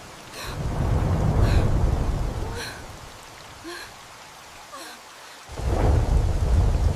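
Rain falling steadily while thunder rumbles twice: a long low rumble swells just after the start and fades over about two seconds, and another breaks in suddenly about five and a half seconds in.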